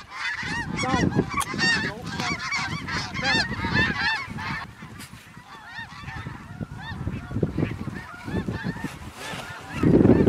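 A large flock of snow geese calling, many high, yelping honks overlapping continuously, over a low rumble of wind on the microphone.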